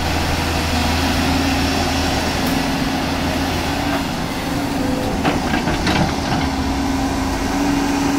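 Volvo excavator's diesel engine running steadily with a low hum, with a few short knocks about five to six seconds in.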